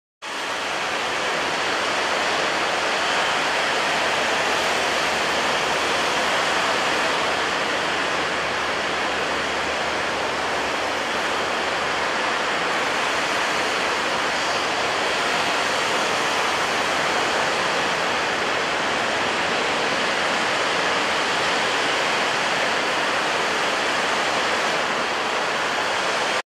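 Steady rushing noise of rough surf and wind, loud and even, with no single waves standing out.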